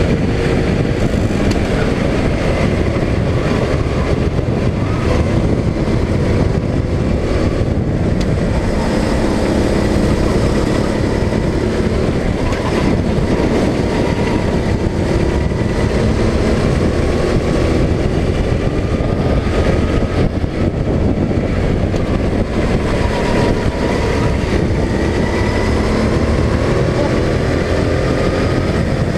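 Go-kart engine heard from on board, running under throttle with its pitch rising and falling repeatedly as it accelerates and eases off around the track.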